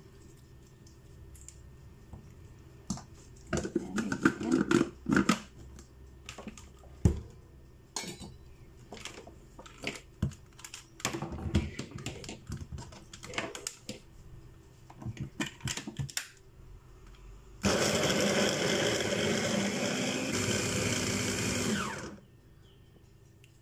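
Clicks and knocks of a hand blender's chopper attachment being handled and the motor unit fitted onto the bowl, then about 17 seconds in the motor runs for about four seconds, blending chickpeas, garlic, tahini and lime juice into hummus, and cuts off suddenly.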